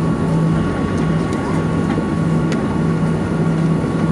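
Jet airliner cabin noise while taxiing: the engines running at low power with a steady hum and rumble, and a low drone that pulses evenly.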